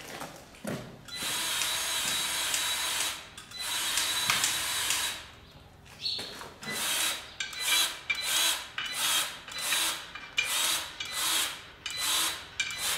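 Cordless 3/4-inch impact wrench (nut gun) running on wheel nuts: two long runs of a couple of seconds each, then a string of short bursts about twice a second.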